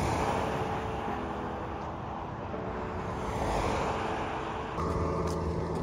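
Highway traffic passing: the rushing of car tyres on the road, swelling at the start and again about three and a half seconds in.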